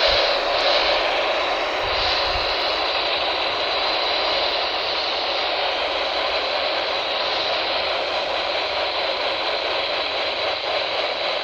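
Steady hiss of static from a weather radio receiver on a weak NOAA Weather Radio signal, with a faint thin whistle running through it.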